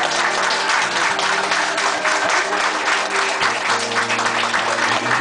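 Studio audience applauding, many hands clapping at once, over background music.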